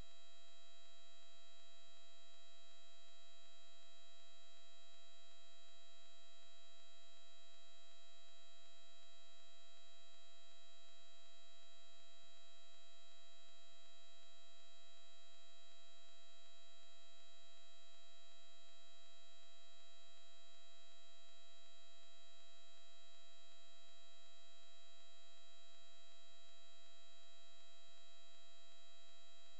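Steady electrical hum with several high, unchanging whining tones; no impact or other event.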